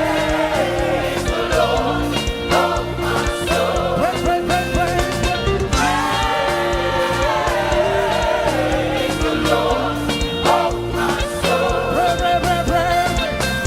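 Live gospel praise music: singers with a choir over a full band with bass and drums, a steady beat.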